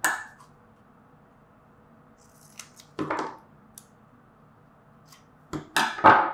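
Scissors snipping double-sided tape: a sharp snip at the start, another about three seconds in, and three quick snips near the end.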